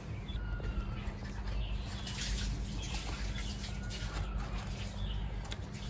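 Quiet background ambience with small birds chirping now and then over a low, steady hum.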